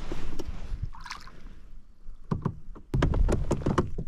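Water splashing around a plastic fishing kayak as a hooked largemouth bass is brought to the boat, with a run of quick splashes and knocks starting about two seconds in, busiest near the end.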